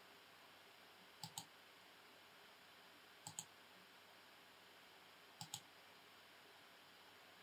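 Computer mouse clicked three times, about two seconds apart, each click heard as a quick double tick, over near-silent room tone.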